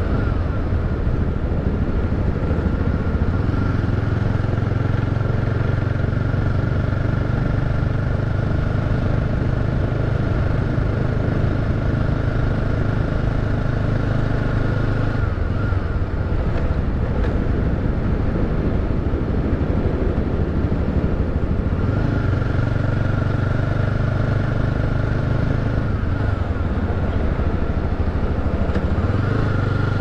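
Motorcycle engine running steadily under way, with road and wind noise. The engine note drops off about halfway through, picks up again several seconds later, and eases off briefly once more near the end.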